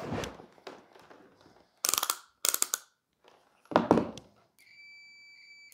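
Clicks and clatter of a digital multimeter and its test leads being handled on a table, followed near the end by one steady, high electronic beep of about a second from the meter.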